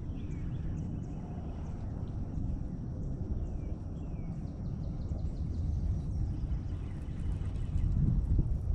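Outdoor riverside ambience: a steady low rumble with a few faint, short descending bird chirps.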